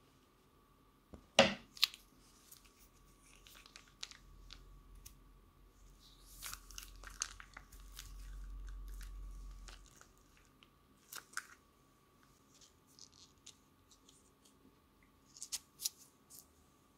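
Plastic piping bag crinkling and crackling as it is squeezed, with wet slime squishing and crackling as pink slime is piped into a bowl of clear slime. The sharpest crackle comes about a second and a half in, more crackles cluster a few seconds later, and another comes near the end.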